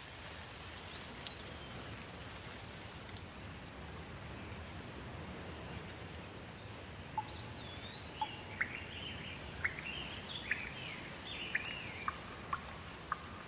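Steady rain hiss with birds calling over it. The bird calls are sparse at first and come often from about halfway through, as short rising and falling whistles and sharp chips.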